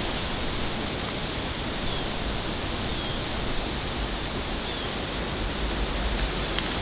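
Steady outdoor background hiss in woodland, with low rumbles now and then and a few faint, short high chirps.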